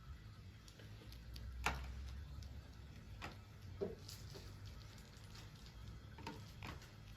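Quiet room with a low hum and a handful of faint, scattered clicks and taps, about five over several seconds.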